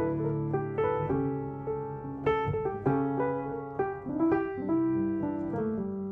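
Background music: a gentle piano playing slow chords and melody notes, each struck note ringing and fading.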